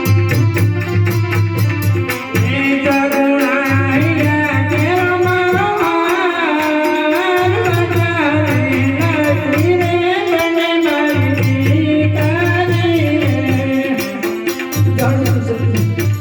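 Indian folk music: a wavering melody over a steady drone, with fast, even hand percussion and a pulsing low drum beat.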